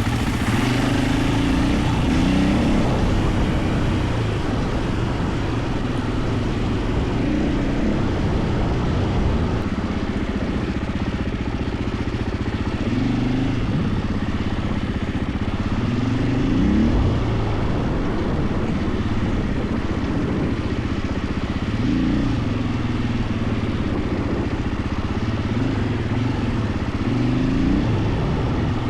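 KTM 450 EXC enduro motorcycle's single-cylinder four-stroke engine running under way off-road, its revs rising and falling with the throttle every few seconds.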